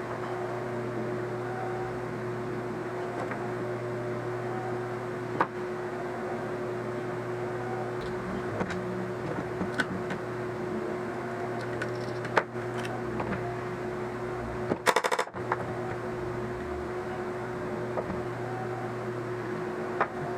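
A steady low electrical hum with occasional sharp clicks, and a brief rapid rattle of clicks about fifteen seconds in.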